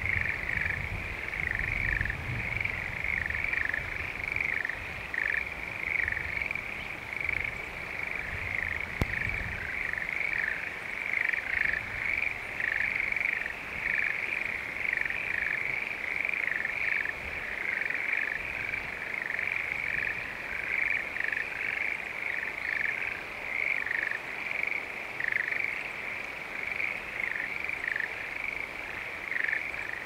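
A chorus of frogs calling from flooded rice paddies: many overlapping, fairly high-pitched croaks repeating without a break. A low rumble sits underneath for roughly the first ten seconds.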